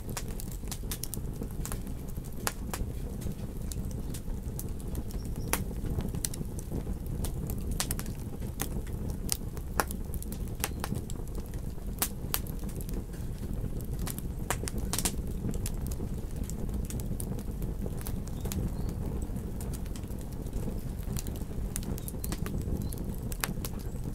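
Wood campfire crackling, with frequent sharp irregular pops, over a steady low rumble.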